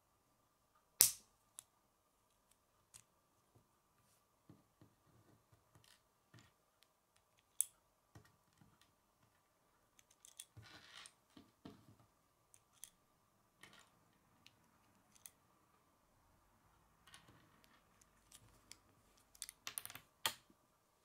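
Plastic K'nex rods and connectors being handled and snapped together: scattered sharp clicks, the loudest about a second in and a few close together near the end, with soft rustling of the pieces in between.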